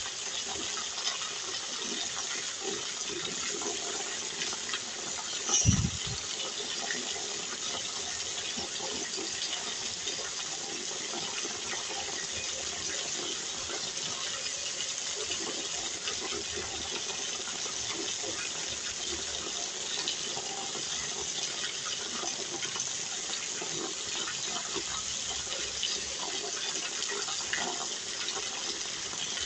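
Rain falling, with rainwater pouring off a roof edge in streams and splashing onto the wet ground: a steady, even hiss. One brief low thump comes about six seconds in.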